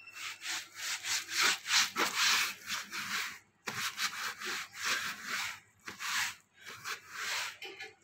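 A cloth scrubbing a wet plastic sheet in quick back-and-forth strokes, wiping grime off with cleaning liquid, with a short break about halfway through.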